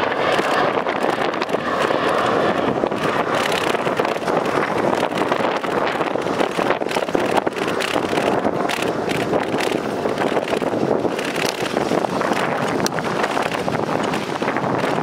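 Steady rushing wind on the microphone while riding a bicycle along a concrete path, mixed with the rolling noise of the ride and scattered small clicks.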